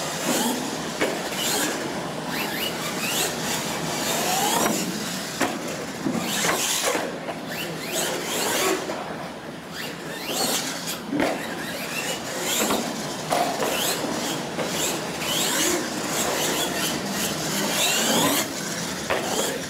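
R/C monster truck driven hard on a concrete floor: its motor whines up and down with the throttle, the tyres scrub and squeal, and sharp knocks come from bumps and landings.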